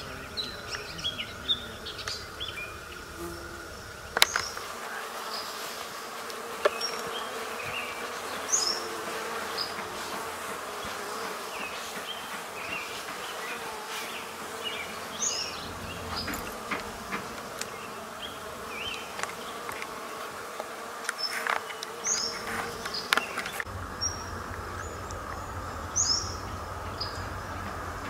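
Bees buzzing steadily among garden flowers, with many short, high songbird chirps scattered throughout and a sharp click about four seconds in.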